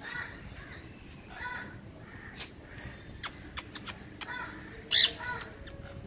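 Sun conure giving a series of short, harsh squawks, the loudest and sharpest about five seconds in, with light clicks in between.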